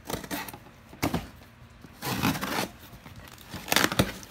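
Packaging being handled and opened: irregular rustling, crinkling and tearing, with a sharp knock about a second in and another near the end.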